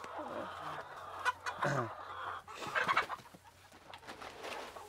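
Chickens clucking: several separate short calls spread across a few seconds.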